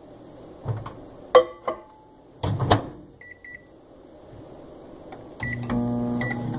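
Microwave oven being set and started: a few clunks, then two short keypad beeps about halfway through. In the last second or so the oven starts running with a steady hum, with more beeps over it.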